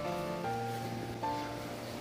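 Background music: a gentle melody of held notes changing about every half second.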